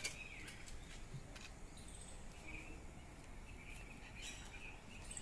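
Faint outdoor ambience: scattered short bird chirps over a steady low hum, with a few light clicks, the sharpest at the very start.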